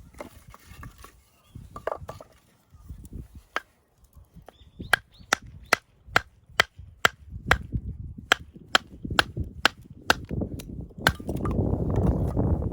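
Kindling being chopped: a run of evenly spaced sharp chops, about two to three a second, after a few scattered knocks, giving way near the end to a louder rustling and scraping of the wood being handled.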